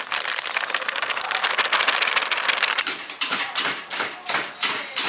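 Chicken deep-frying in a cauldron of hot oil, a dense crackling sizzle. About three seconds in it gives way to a run of sharp knocks and clatter, about three a second.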